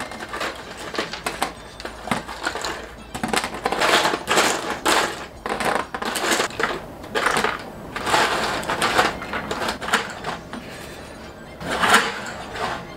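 Rapid clicking and clattering of chopsticks picking through a tray of candied fruit and lotus seeds and setting pieces down on plastic lids, over background music.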